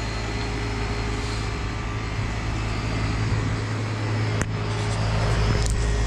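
1993 Carrier TECH 2000 1.5-ton heat pump outdoor unit running steadily in heat mode: the Tecumseh AW reciprocating compressor's low hum under the steady air noise of the condenser fan. One sharp click about four and a half seconds in, and the sound grows a little louder near the end.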